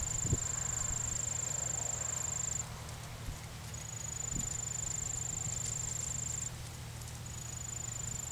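An insect trilling at a high, even pitch in three long stretches, stopping for about a second between them. Underneath are faint hoofbeats of a horse walking on arena sand.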